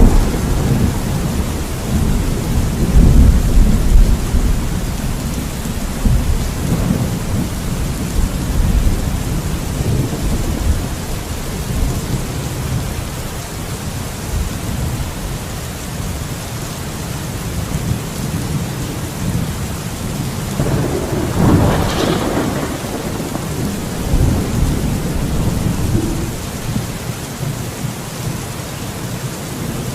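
Thunderstorm: steady heavy rain hissing throughout, under rolling rumbles of thunder that are loudest in the first few seconds, with a sharper, nearer thunderclap about three-quarters of the way through.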